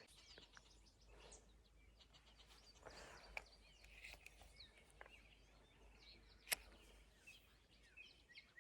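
Near silence with faint, scattered bird chirps and a single sharp click about six and a half seconds in.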